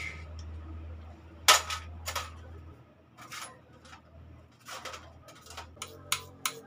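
Sharp metallic clicks and clinks of a hand tool and steel parts as the kick-start lever is fitted and bolted onto a Kawasaki Fury 125 engine, coming at irregular intervals with the loudest knock about one and a half seconds in.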